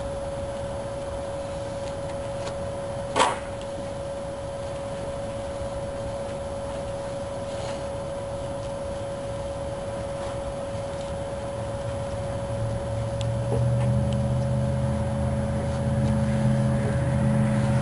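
A steady high hum with one sharp click about three seconds in. From about twelve seconds on, a vehicle engine's low drone comes in and grows louder.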